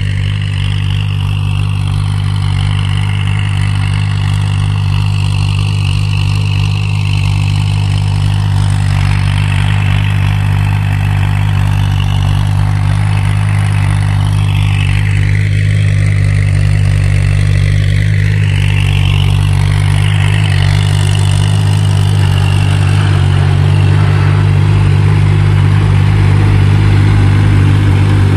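Kubota tractor's diesel engine running steadily under load while driving a rotary tiller through rice-paddy stubble, growing slightly louder near the end.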